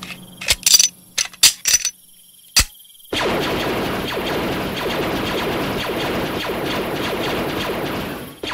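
Film-style blaster fire: a rapid volley of about six sharp shots in the first few seconds. After a brief pause, a dense continuous wash of sound follows and cuts off near the end.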